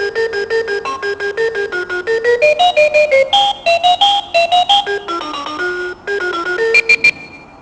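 Talking alarm clock playing its electronic alarm melody: quick staccato beeping notes, about six a second, stepping up and down in pitch as a simple tune. The tune breaks off near the end.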